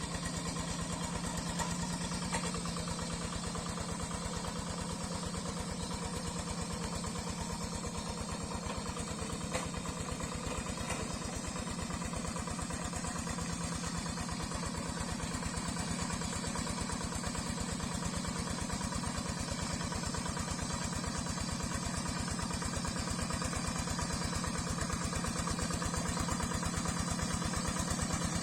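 Yanmar diesel engine of a Quick G3000 Zeva two-wheel hand tractor running steadily, with a fast, even chugging of firing strokes as it works wet paddy mud. It grows a little louder near the end.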